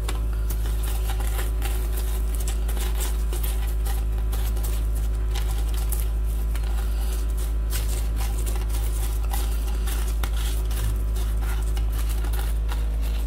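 A steady low hum, with faint, irregular rustling and light crackling of fried dough balls being rolled by hand in granulated sugar on a plate.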